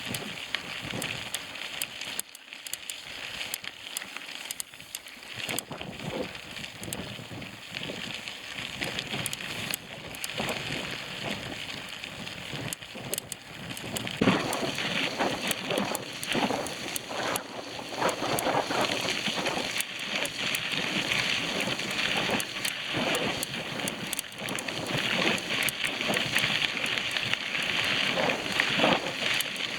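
Bicycle tyres crackling and crunching over a dirt trail while riding, with no engine or voice. It gets louder about halfway through.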